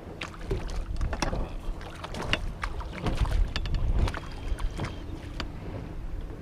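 Water slapping against a boat hull, with a low wind rumble on the microphone and scattered irregular knocks and clicks.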